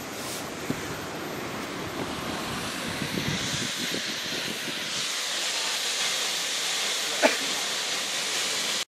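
Steady rushing hiss of a waterfall heard from a distance, growing stronger in the upper range about three seconds in, with a short pitched sound near the end.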